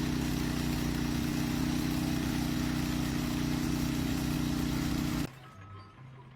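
A loud, steady machine drone, a low hum with a hiss over it, that cuts off suddenly about five seconds in.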